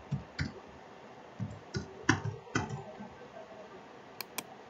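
Computer keyboard keys tapped irregularly, typing a password, followed by two sharp clicks in quick succession near the end.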